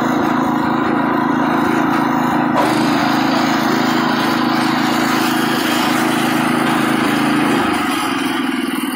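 Predator 212cc single-cylinder four-stroke engine on a riding tractor running steadily while the tractor is driven, its note dropping a little near the end.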